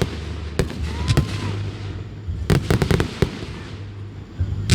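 Aerial fireworks bursting: single sharp bangs, then a rapid run of crackling pops about two and a half seconds in, and the loudest bang near the end.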